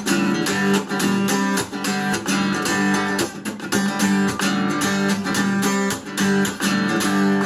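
Instrumental break in a song: guitar strumming chords in a steady rhythm, with no singing.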